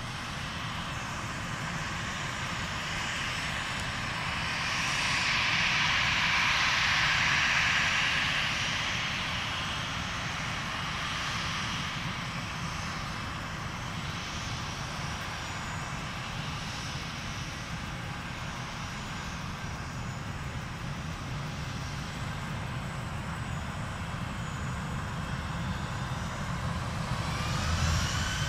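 Airbus airliner's jet engines running at low power, a steady hiss over a low rumble that grows louder for a few seconds about five seconds in. Near the end a rising whine sets in as the engines spool up for the takeoff roll.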